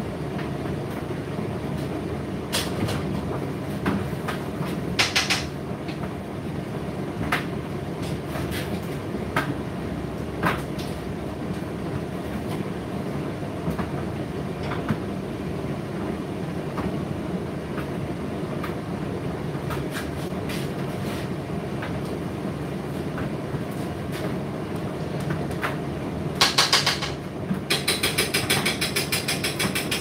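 Indesit IDC8T3 condenser tumble dryer running: the steady hum and rumble of its motor and turning drum, with scattered clicks and knocks. Near the end comes a louder burst of rapid knocking, several knocks a second.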